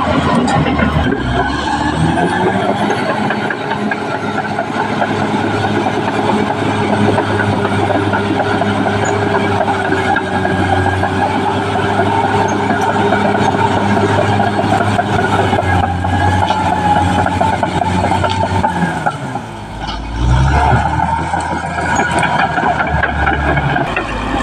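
Caterpillar D6R XL bulldozer's diesel engine working. It revs up about two seconds in and holds steady, then drops briefly near the end before revving up again.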